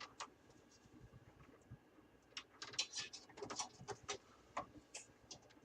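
Light clicks and taps of a USB front-panel module being handled and fitted at a PC case's drive bay. A quick cluster of them starts about two seconds in.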